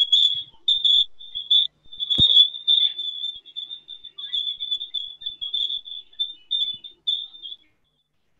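High-pitched audio feedback squeal over a video call: a single wavering tone that keeps breaking up, with one sharp click about two seconds in, then stopping shortly before the end. It is the sign of an echo loop in the call, with the speaker's own voice being sent back to her.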